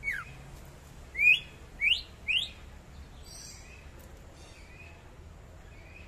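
Caged cucak ijo (greater green leafbird) singing: a downward-sliding whistle at the start, then three loud, quick rising whistles about a second in, followed by softer chirps.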